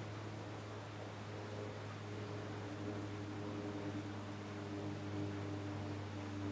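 A steady low hum under an even hiss, with a few faint held tones that grow slightly stronger partway through; no distinct event.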